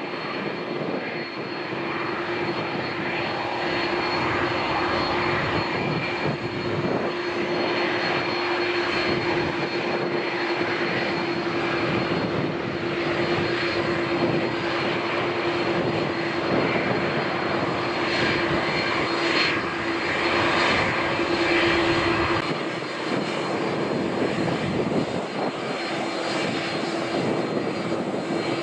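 Jet airliner's engines running loud and steady: a dense rushing noise with a steady hum beneath it, easing a little about three-quarters of the way through.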